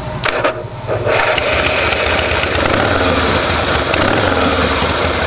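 A 1978 Harley-Davidson Ironhead Sportster's 1000cc V-twin starts: brief cranking, then it catches about a second in and runs steadily through chrome staggered exhaust pipes. It starts right up.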